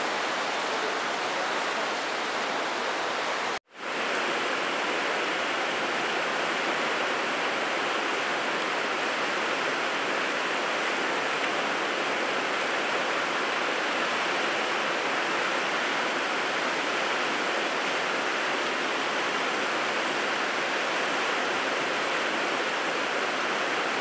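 Fast river water rushing over rocks: a steady, even hiss. It drops out for a moment about four seconds in, then resumes unchanged.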